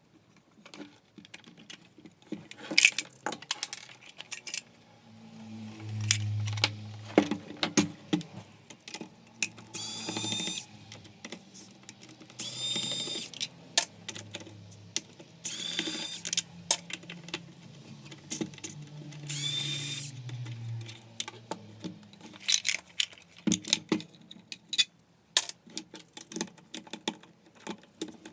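Electric screwdriver whirring in short bursts of about a second, backing out screws during the teardown of a belt sander, with sharp clicks and knocks of screws, plastic housing and metal parts being handled between the bursts.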